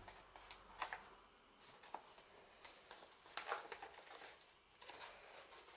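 Faint rustling and a few light knocks as a bouquet of flower stems in plastic cups is handled and laid down on the worktop, the most distinct knocks about a second in and a little past three seconds in.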